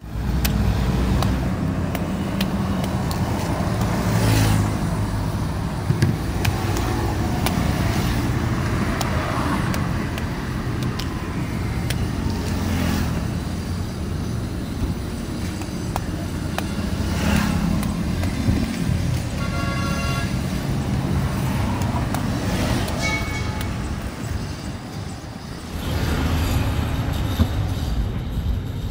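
Steady road traffic running past, with repeated sharp knocks of a knife chopping into palmyra palm fruit husks. A brief horn-like tone sounds about two-thirds of the way through.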